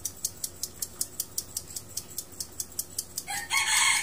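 A rooster crowing, starting about three seconds in, the loudest sound here. Under it is a steady, fast, high ticking, about four ticks a second.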